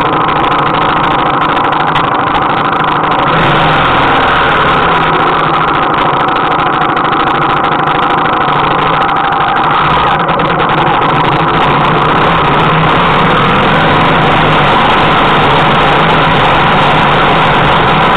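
Motorcycle engine running steadily at low revs, heard close up from the bike itself, with small rises and falls in pitch.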